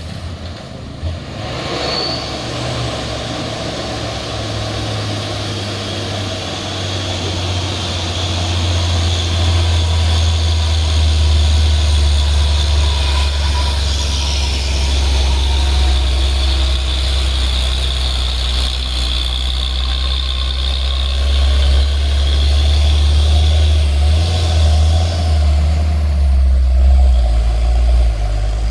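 Heavy diesel truck engine running with a deep, steady drone on a steep incline, growing louder about a third of the way in.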